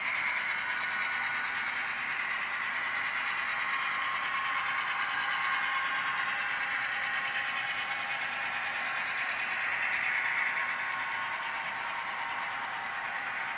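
HO scale model freight train running over a girder bridge: a steady whirring clatter of the small wheels on the rails and the locomotive's motor, with no deep engine rumble, easing off a little near the end.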